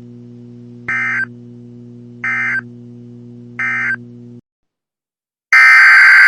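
Emergency Alert System data tones: three short, evenly spaced buzzy bursts of the end-of-message code over a steady electrical hum, which cuts off. After about a second of silence, a much louder, longer burst begins the digital header of the next alert.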